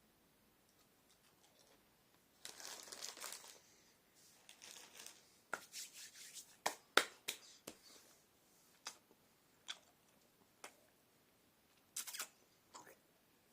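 Plastic sweets packet crinkling and rustling in a few short bursts, with scattered sharp crackles in between.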